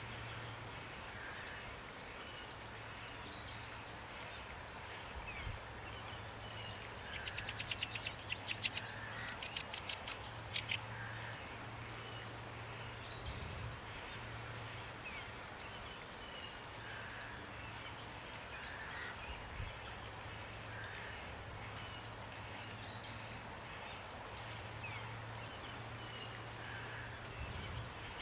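Steady rain hiss with several small songbirds chirping and whistling throughout. A fast trill of rapidly repeated notes stands out about seven to ten seconds in, and a low hum comes and goes underneath.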